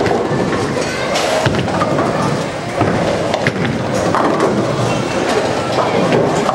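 Bowling alley din: balls rolling down the lanes and pins clattering, with the pinsetter machinery and voices in the background.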